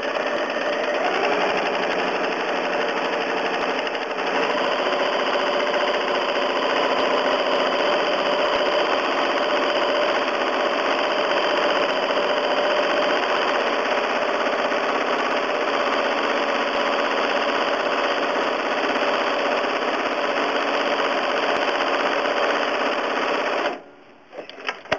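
Home sewing machine running steadily, straight-stitching through the layers of a quilt as it is machine-quilted. The machine stops suddenly near the end.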